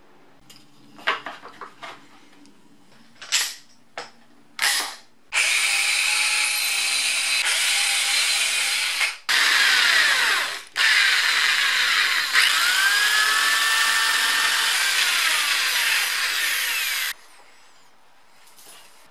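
Electric drill boring through a plywood strip: a few short bursts first, then the drill runs in three long stretches with brief breaks, its pitch sliding up and down as the speed changes, and it stops suddenly near the end.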